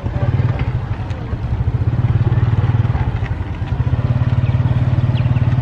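A small engine running steadily, a low, fast-pulsing drone, with faint market chatter behind it.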